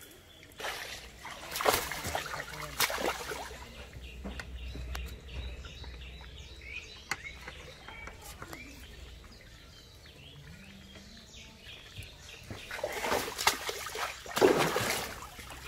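Water splashing as a cast net holding a caught fish is hauled up out of the water. There are splashes about two seconds in and again around three seconds, then a louder run of splashing near the end as the fish reaches the surface.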